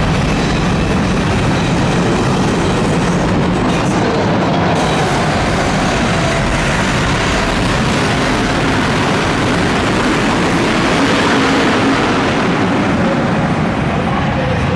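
BriSCA F1 stock cars racing round the track, their V8 engines running loud and continuous with no break.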